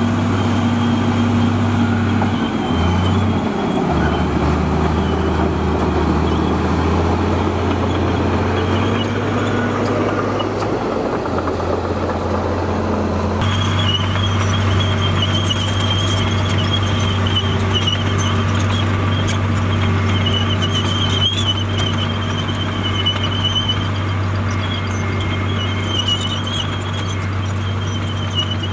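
Komatsu D58E crawler dozer's diesel engine running under load, its pitch dipping and shifting a few times in the first half. From about halfway a high, wavering squeal runs alongside the engine.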